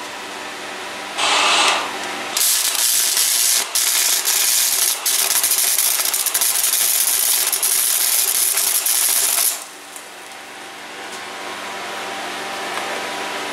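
Chicago Electric 125-amp flux-core wire-feed welder arc crackling while tack-welding steel rod. There is a short burst about a second in, then a steady weld of about seven seconds with a couple of brief breaks. After the arc stops, a fan hums.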